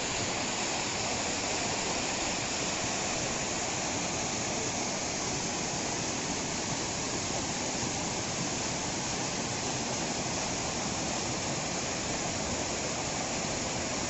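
Waterfall pouring and splashing down a steep rock face, heard close at its foot as a steady, unbroken rush of water.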